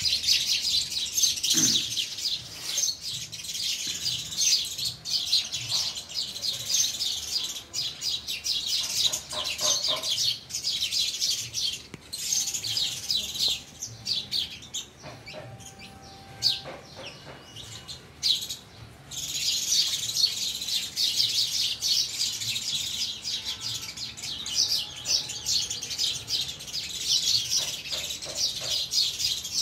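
A flock of house sparrows chirping and chattering, many high, short calls overlapping. The chatter thins out for a few seconds midway, then picks up again to full volume.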